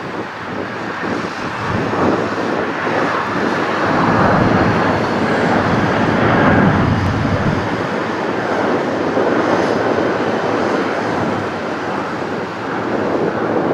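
Airbus A320-family jet airliner's engines at takeoff thrust as it lifts off and climbs away: a loud, steady roar that swells to its loudest about six seconds in, then holds.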